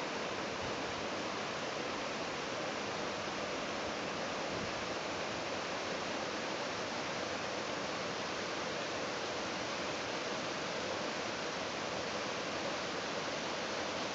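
Steady rush of a rocky creek's water spilling over a small cascade and stones.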